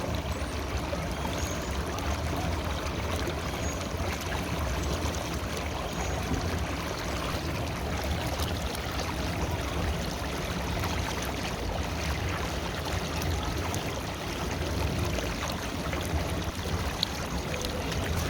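River water flowing steadily, a continuous rushing with a deep low rumble.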